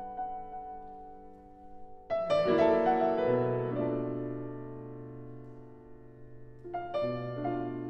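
Background piano music: slow chords that ring and fade, with new chords struck about two seconds in and again near the end.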